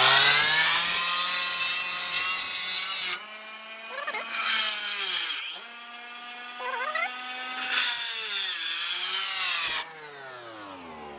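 Abrasive disc grinder cutting into hardened steel file stock, a blister on a forged file. The grinding is loud twice, up to about three seconds in and again from about eight to ten seconds in. Between those spells the motor runs with a lighter whine that dips in pitch when the disc is pressed in, and the whine eases off near the end.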